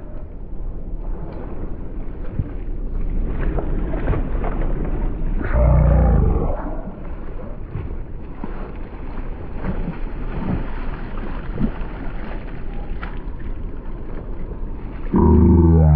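Wind rumbling on the microphone over the splashing of a hooked northern snakehead thrashing at the water's surface.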